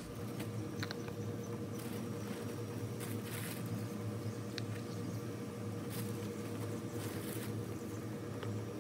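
Pine bark mulch nuggets being scooped by hand from a plastic bag and dropped around the base of a potted tree: scattered rustles, crinkles and light clatters at irregular moments, over a steady low background hum.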